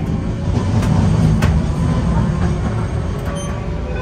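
Streetcar running along its tracks: a steady low rumble from the wheels and running gear, with a couple of sharp clicks in the first second and a half.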